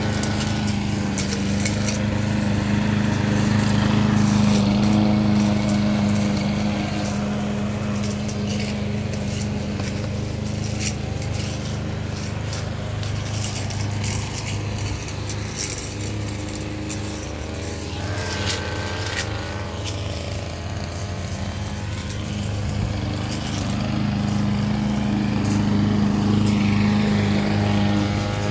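Backpack brush cutters with small petrol engines running steadily at cutting speed while mowing grass. The engine drone is loudest near the start and again near the end, and softer in between.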